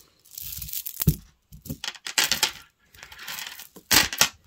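Metal costume jewellery clinking and jingling as it is handled, in four short bursts with a sharp click about a second in.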